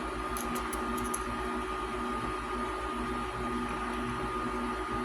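Steady background hum with a thin high tone running through it, and a few faint light clicks in the first second.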